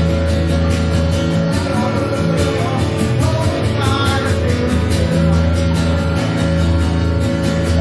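Live band music with electric bass, guitar and a steady drum beat, played without words.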